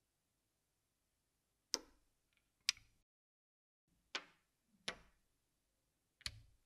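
Brio painted wooden blocks set down and snapped together by their magnets on a wooden toy train chassis: five short, sharp wooden clacks, spaced about a second apart.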